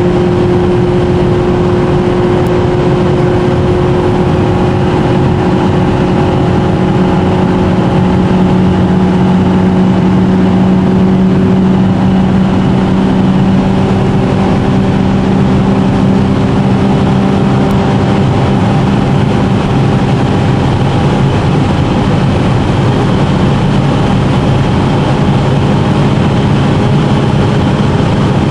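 Opel Calibra's engine and road noise heard from inside the cabin while cruising, the engine's hum holding a nearly steady pitch.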